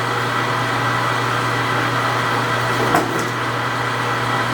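Steady mechanical hum of running shop machinery, with a single short knock about three seconds in.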